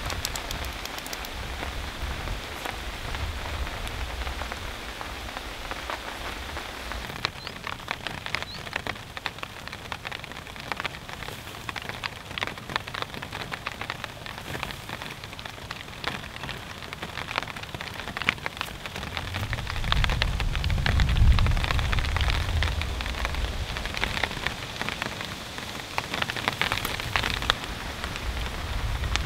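Steady rain falling, with many single drops ticking on a nearby surface. A low rumble swells and fades about twenty seconds in.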